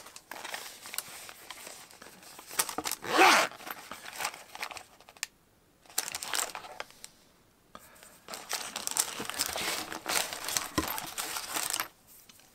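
Packing tissue paper and a small black bag crinkling and rustling as they are handled and opened, in irregular bursts with short pauses. The loudest crinkle comes about three seconds in.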